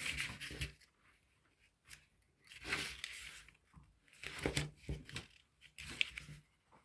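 Square of origami paper being folded in half and its crease pressed down by hand: about four short bursts of paper rustling and rubbing, with quiet gaps between.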